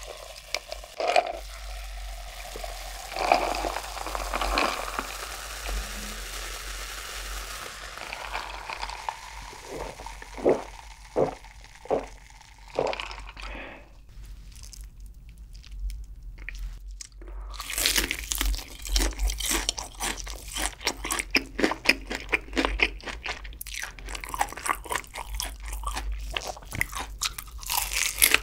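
Cola poured over ice, fizzing with a few clinks, then, after a short pause, close-miked crunching and chewing of crispy fried chicken with dense crackling bites.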